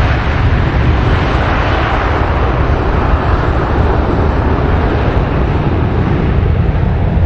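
Twin jet engines of a Condor Boeing 757-300 running at high power on its takeoff roll: a loud, steady engine noise with a deep rumble underneath.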